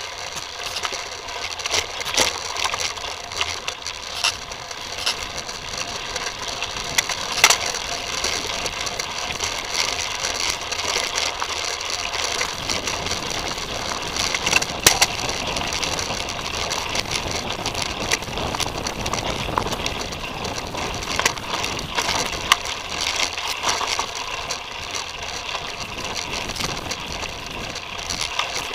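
Mountain bike rolling over a rough dirt trail, heard through an action camera mounted on the bike: a steady rattle and ticking of the bike's parts over the ground, with occasional sharp knocks at bumps.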